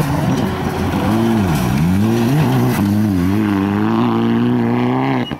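Rally car's engine revving hard as it passes, the pitch falling and climbing again and again as the driver lifts off and gets back on the throttle, over the hiss of gravel thrown by the tyres. The sound drops away abruptly near the end.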